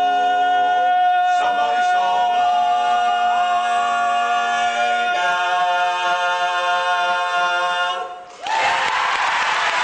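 Male a cappella quartet singing sustained close-harmony chords, with one high note held over the changing chords as the song ends. The final chord is cut off just after eight seconds and applause breaks out.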